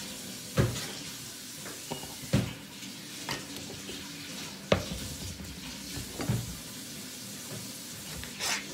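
Kitchen knife cutting tomatoes on a plastic cutting board: a handful of sharp, irregular knocks of the blade and utensils on the board, over a steady hiss.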